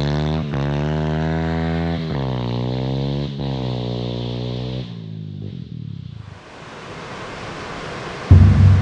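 Small dirt bike's engine pulling away and shifting up through three gears, the pitch climbing, dropping at each shift and climbing again before fading into the distance. Then a steady rush of falling water, and near the end a sudden loud low sound.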